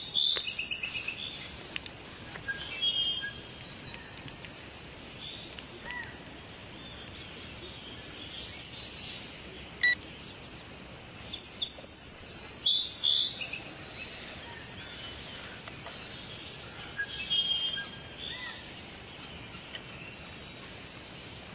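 Songbirds chirping in short bursts of song every few seconds over a steady background hiss, with one sharp click near the middle.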